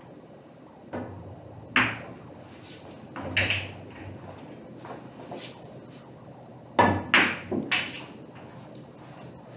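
Pool balls clacking on a pool table as shots are played: the cue tip striking the cue ball and balls knocking together. A series of sharp clacks in clusters, the loudest group about seven seconds in.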